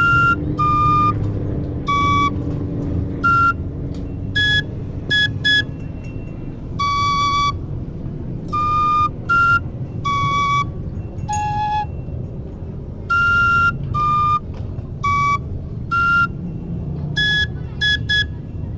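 A flute playing the dance melody slowly in short, separate high notes, over a steady low rumble.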